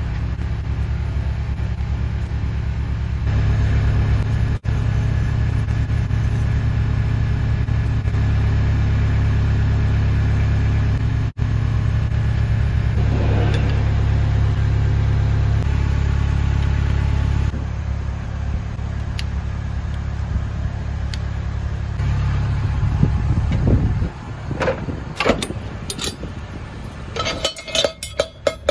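An engine running steadily with a low, even drone. Near the end it gives way to a series of sharp metal clinks and knocks from tools.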